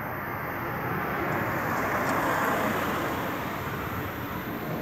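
Aircraft passing overhead: a rushing jet noise that swells to its loudest about two seconds in, then fades.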